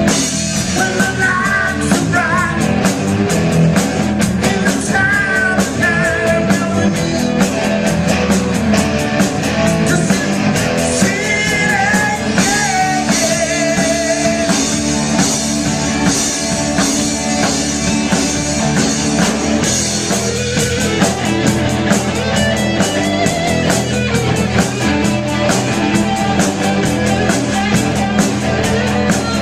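Live rock band playing a song: electric guitars, bass guitar and a Gretsch drum kit with steady drum and cymbal hits, and a man singing.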